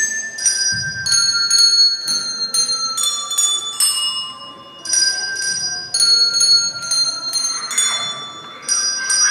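A set of small colour-coded tuned handbells played by a row of children, ringing out a slow melody one note at a time, about two notes a second, with a short pause near the middle.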